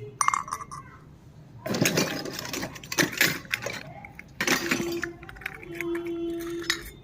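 Miniature toy kitchen pieces being handled: bursts of clinking and rattling as the small utensils knock together, in two main clusters.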